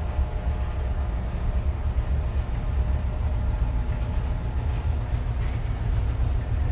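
Steady low engine rumble, with a faint steady hum higher up.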